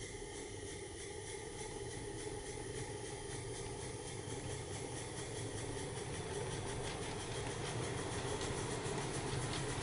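Accucraft 45 mm gauge live-steam model of the Isle of Man Railway Beyer Peacock 2-4-0T No 5 Mona running with a coach: a fast, even chuff of its exhaust mixed with the wheels on the track, growing steadily louder as it approaches.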